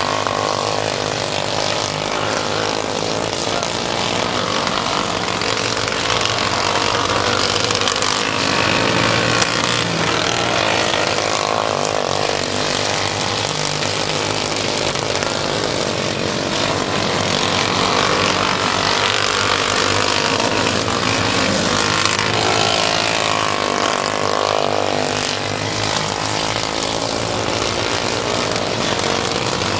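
Engines of modified mini dwarf race cars running on a dirt oval, revving up and easing off over and over as the cars circle the track.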